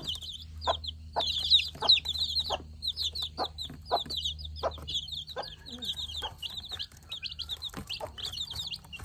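A brood of week-old chicks peeping rapidly and continuously in high, overlapping chirps, with the mother hen's short low clucks repeating among them.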